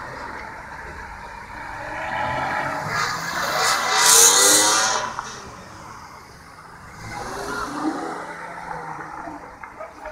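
Car engine accelerating past close by, rising in pitch and loudest about four seconds in, then fading; a second, quieter car pass follows around eight seconds in.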